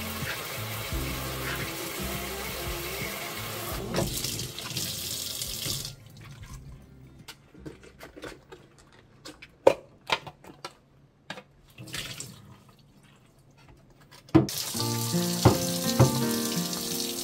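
Kitchen tap running into a stainless steel sink as an air fryer's wire rack is rinsed. The water stops about six seconds in, leaving a few clicks and knocks as a steam air fryer's plastic water tank is handled, and the tap runs again near the end as the tank is rinsed.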